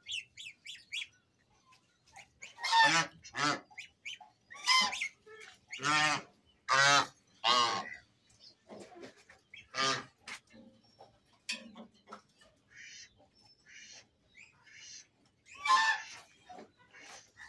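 Domestic geese honking: a string of loud honks at irregular intervals, with fainter calls in between.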